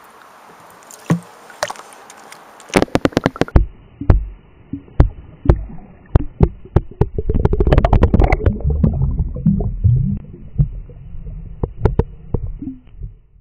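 Sharp clicks and splashes of handling a smallmouth bass at the water's edge, then everything goes muffled as it is heard from underwater: a string of knocks, gurgling and a low rushing rumble of moving water as the bass is released into the river.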